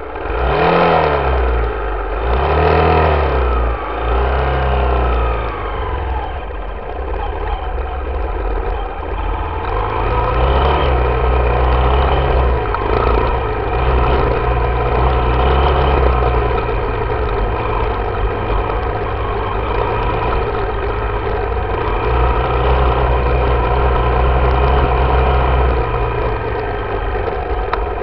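Yamaha YZ dirt bike engine blipped up from idle three times in the first few seconds, the pitch falling back after each. It then runs steadily at light throttle as the bike rides, the pitch rising and falling gently several times.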